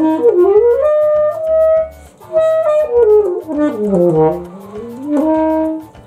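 Alto saxophone playing a melody, runs of notes up and down between held notes, with a short break about two seconds in.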